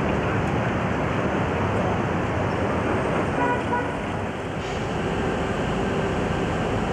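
City street traffic noise: the steady sound of passing vehicles, with a short car horn toot about three and a half seconds in.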